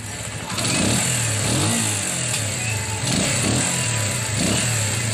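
Euro Keeyway Cafe Racer 152's single-cylinder air-cooled four-stroke engine running, its pitch rising and falling a few times. This is the sound check after a minor tune-up: valve tappet clearance adjusted to cure a tappet tick, and the carburetor cleaned.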